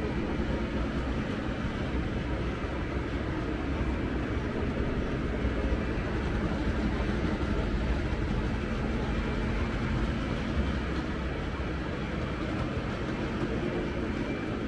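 O gauge model train running on the layout's track: a steady rolling rumble that holds level throughout.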